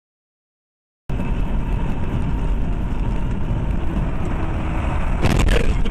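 Steady road and engine noise of a car driving at highway speed, heard from inside the car. It starts abruptly about a second in, and a brief louder burst of noise comes near the end.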